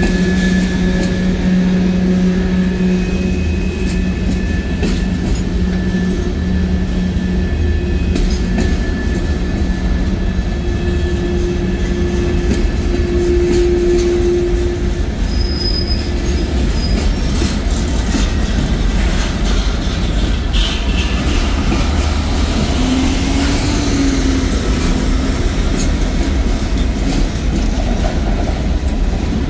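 Freight train tank cars and boxcars rolling past close by: a loud, steady rumble of steel wheels on rail with clicking over the joints. Steady whining tones from the wheels fade out about halfway through.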